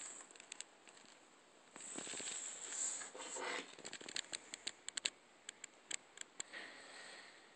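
Close handling of eyeglasses and a glasses case on a table: a rustling scrape about two seconds in, then a quick run of small, sharp clicks and taps.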